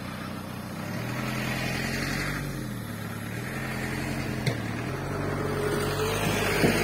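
Dump truck engine running with the tipper bed raised, its speed going up about a second in, easing back around three and a half seconds and rising again near five seconds.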